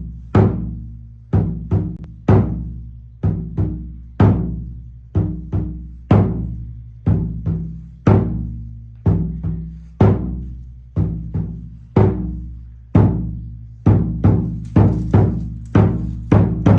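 Taiko drum beaten in a kagura dance rhythm: single strokes and quick pairs of strokes about once a second, each with a deep ringing decay.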